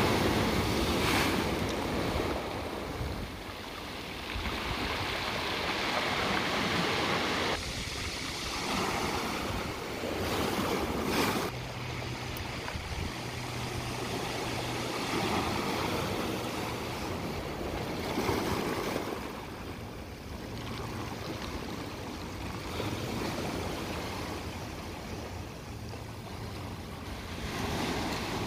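Ocean surf breaking and washing up on a pebbly beach, swelling and ebbing with each wave.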